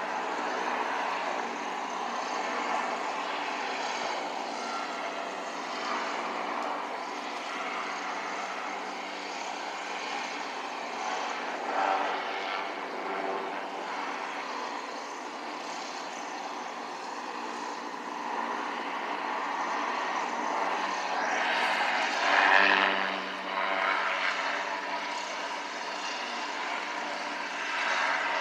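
Goodyear blimp, a Zeppelin NT airship, flying low overhead, its propeller engines droning steadily and swelling louder near the end.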